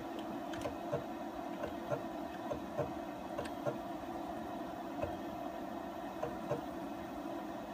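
CNC X2 mini mill's stepper motors humming steadily while energized, with short, irregularly spaced ticks about one or two a second as the axis is jogged in small steps during a backlash test.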